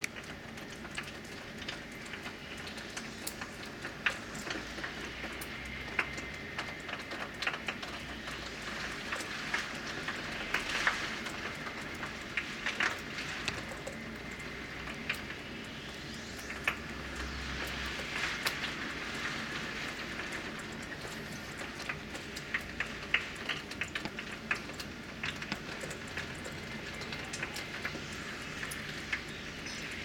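Typhoon rain and wind: a steady rushing of rain, swelling twice, around ten and eighteen seconds in, with many sharp ticks of drops striking the glass.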